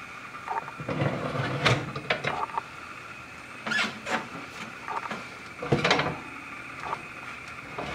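Kitchen utensils and cookware being handled: about four short bursts of clatter and scraping over a faint steady hum.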